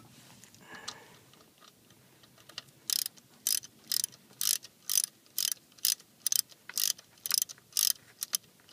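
Hand socket ratchet clicking as it runs down the alternator's mounting bolts. It starts about three seconds in and keeps a steady rhythm of about two strokes a second.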